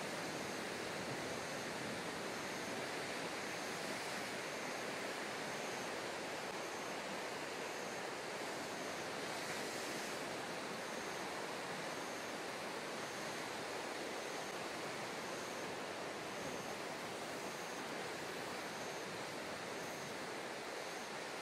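Steady wash of choppy sea water, an even continuous rush with no single wave standing out.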